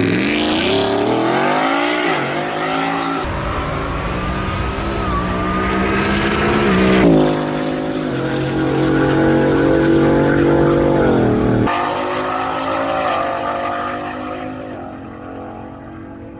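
Whipple-supercharged Ford F-150 Coyote 5.0 V8 under full throttle on a drag-strip launch and pass, at about 13 lb of boost. The engine pitch climbs, drops back at each gear change, and climbs again. It fades near the end as the truck runs away down the track.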